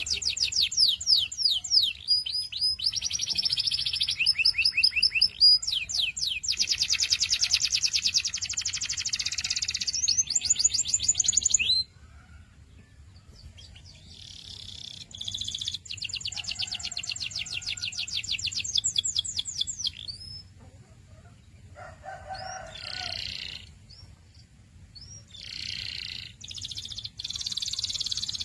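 Domestic canary singing: long, fast trills of rapidly repeated high notes and quick sweeps, broken by a short pause partway through, then further trills and shorter phrases.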